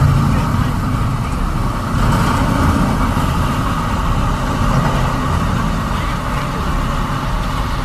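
Heavy diesel equipment running steadily.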